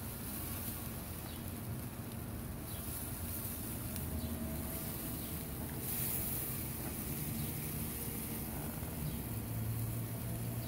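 Steady low engine-like hum with a faint hiss, and a few faint, short high chirps.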